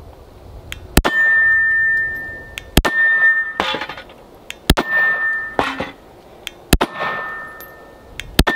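Five pistol shots from a Ruger Security-380, fired slowly about two seconds apart. Each shot is followed by the ringing clang of a hit steel target, with a second rattle of clangs just under a second later.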